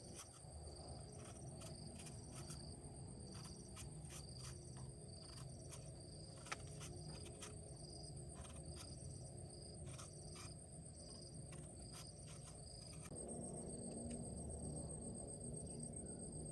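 Insects chirping in a steady, pulsing high trill, over a low rumble that grows a little louder near the end, with scattered sharp clicks.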